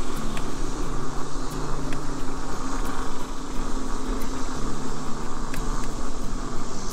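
Vehicle driving slowly on a paved road: a steady low engine hum with road noise.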